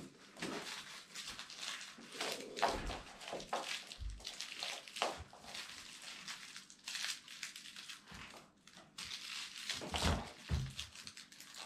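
Pomeranian dog playing with a plush toy: irregular rustling and scuffling of the toy and paws, with a few soft thumps.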